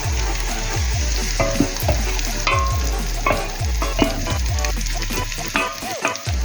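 Food sizzling as it fries in a pan while being stirred, with frequent short clicks and scrapes of the spoon against the pan.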